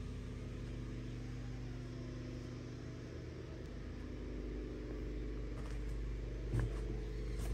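Turncrafter Commander variable-speed wood lathe running empty, its motor giving a steady hum of several level tones. A single knock sounds near the end.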